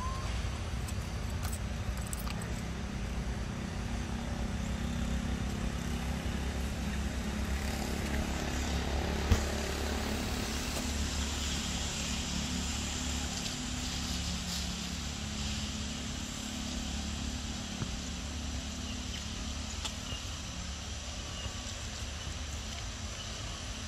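Steady low rumble and hiss of outdoor background noise, with one sharp knock about nine seconds in and a higher hiss coming in from about eleven seconds.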